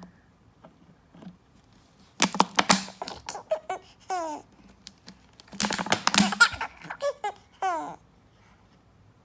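Baby laughing in two bouts, starting about two seconds in and again about five and a half seconds in: quick breathy bursts of laughter, each bout ending on a falling squeal.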